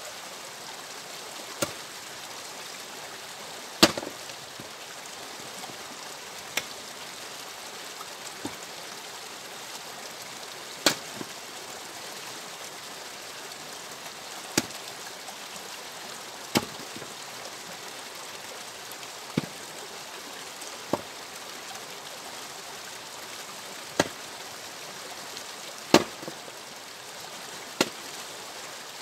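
Axe blows splitting firewood on a chopping block: about a dozen sharp cracks at irregular intervals of two to three seconds, over a steady background hiss.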